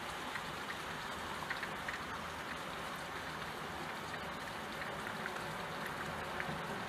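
Steady rain falling on window glass, an even hiss with individual drops ticking here and there.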